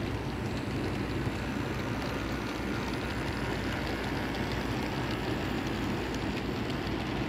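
HO-scale model freight train, headed by two diesel locomotives, running past on the layout's track: a steady low rumble of wheels and motors with faint light ticking.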